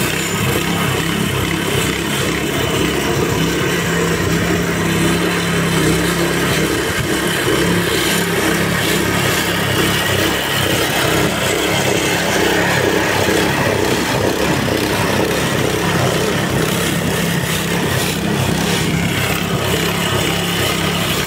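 Weibang petrol lawn scarifier running steadily under load. Its small single-cylinder four-stroke engine drones throughout, with a dense rough clatter from the spinning blades raking through thatch and turf.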